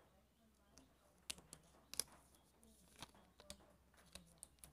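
Faint scattered clicks and light plastic crackles as a new smartphone and its clear protective film are handled and peeled.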